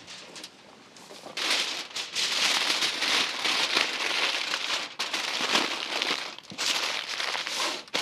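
Aluminium foil crinkling and crumpling as it is folded by hand into a wrapped parcel. It starts about a second and a half in, with a brief lull around six and a half seconds.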